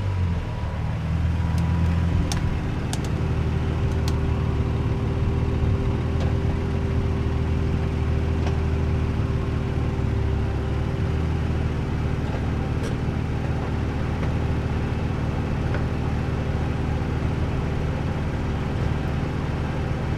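2003 Nissan 350Z's VQ35DE V6 and road noise humming steadily as the car drives. Several sharp ticks come in the first few seconds, and one more later. The ticking seems to come from the front brake area and has persisted after a new wheel bearing.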